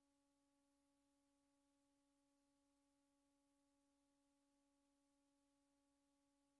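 Near silence: a silent film's soundtrack holding only a faint, steady hum of a few fixed pitches over a low hiss.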